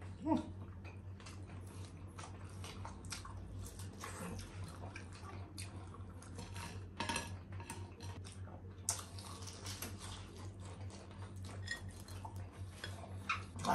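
Spoons and forks clinking and scraping against bowls and a plate in many short, irregular clicks, with chewing in between.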